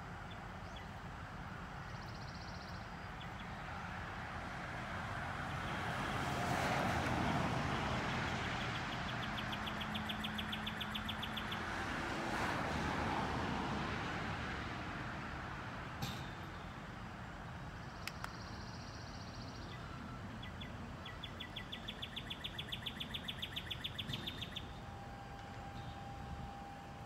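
LiftMaster RSW12U swing-gate operators running, driving a pair of iron driveway gates open. A passing vehicle swells up and fades away about six to fourteen seconds in, the loudest thing heard, and a bird trills in two quick bouts of rapid notes.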